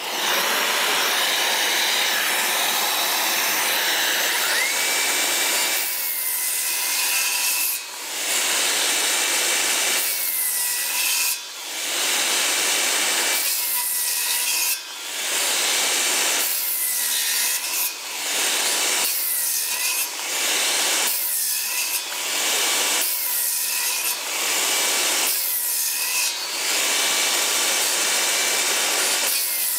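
Milwaukee M18 Fuel 2830-21HD rear-handle circular saw spinning up about four seconds in, then cutting 2x4 lumber. Its motor pitch dips and recovers each time the blade bites, about every one and a half to two seconds. A steady rushing noise runs underneath from the start.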